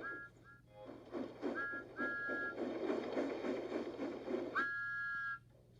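Steam locomotive chuffing at about four to five puffs a second, with a two-note steam whistle giving several short toots and then one longer blast that rises into pitch. The sound cuts off suddenly just after that blast.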